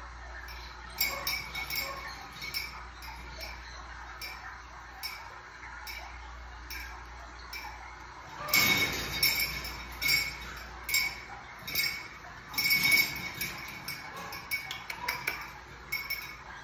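Light metallic clinks, irregular, from the wire cage and its hanging metal ladder being jostled as marmosets climb on them. The clinks come thicker and louder about eight and a half seconds in and again around thirteen seconds.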